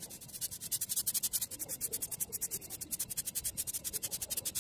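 Pen and felt-tip marker scratching on paper in fast, even strokes, about ten a second.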